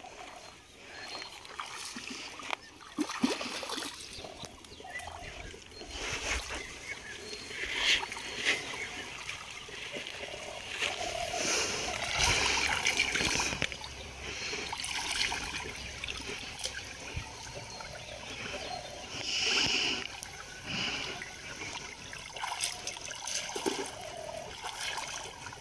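Hands splashing and sloshing in shallow, muddy pond water while feeling for fish by hand, with irregular splashes and small trickles of water.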